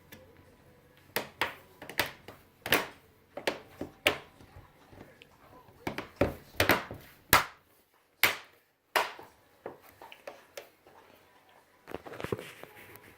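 Sharp plastic clicks and knocks from hands working inside an opened HP laptop's case while swapping its RAM module, irregular and coming in quick groups, with a short lull a little past the middle and a dense cluster near the end.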